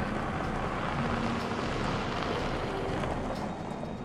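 Pickup trucks driving past on a dirt road: a steady mix of engine and tyre noise, easing off slightly near the end.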